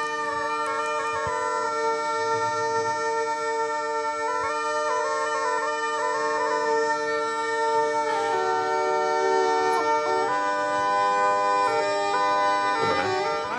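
Sicilian zampogna (ciaramella) bagpipe playing a litany: steady drones held under a melody that steps between notes, busiest about four seconds in and again from about eight seconds in.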